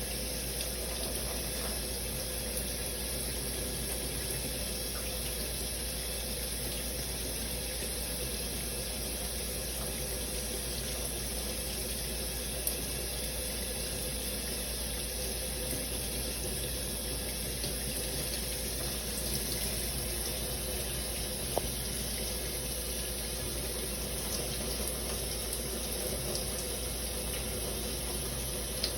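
Shower spray running steadily, an even hiss of falling water, with a couple of brief ticks along the way.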